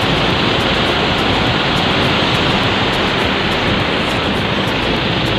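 Aliwagwag Falls' cascades rushing over boulders: a loud, steady rush of whitewater.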